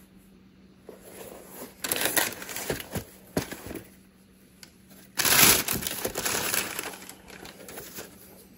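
Rustling, crinkling handling noise as a new sneaker is turned over in the hands, in two spells, the louder one starting about five seconds in, with a few sharp clicks.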